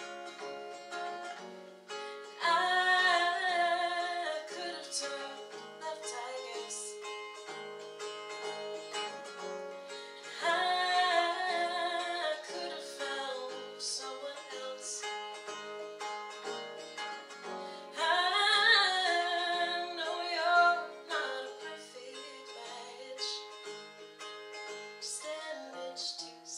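A woman singing to her own acoustic guitar accompaniment. The guitar plays steadily throughout, and the voice swells into three louder held phrases: about two seconds in, ten seconds in and eighteen seconds in.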